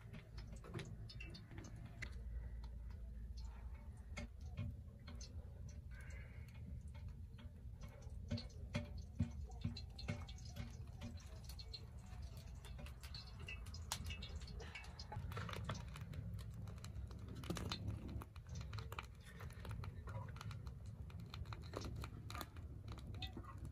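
Wood fire crackling in a clay cooking stove: a steady scatter of small, irregular clicks and pops over a low rumble.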